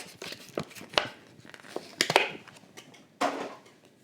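Stiff plastic blister packaging crinkling, with a handful of light clicks and knocks as a small diecast model car and its packaging are handled; the longest crinkle comes about three seconds in.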